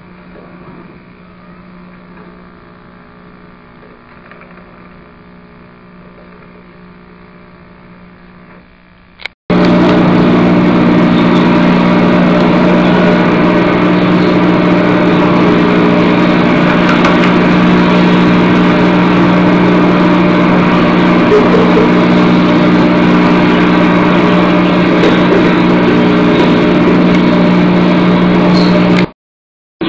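Loud, steady mechanical running noise with a low hum, cutting in abruptly about nine seconds in and stopping suddenly just before the end. Before it there is only a faint hum.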